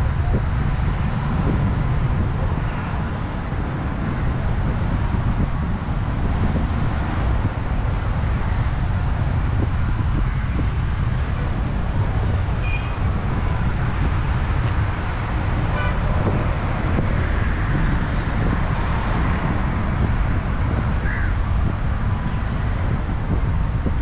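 Steady street traffic noise, an even rumble heavy in the low range.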